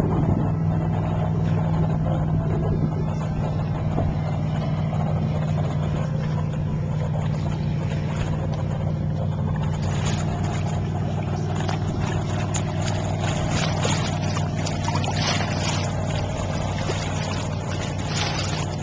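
Ticon 30 sailboat under way: its engine hums steadily at an even pitch, and water splashes along the hull, more often from about halfway through.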